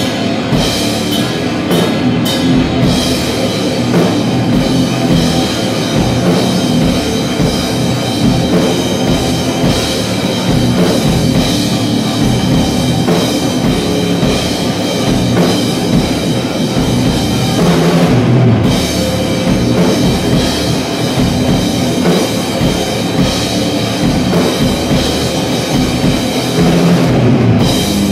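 Live heavy rock band playing a riff: electric guitar over a full drum kit, loud and dense.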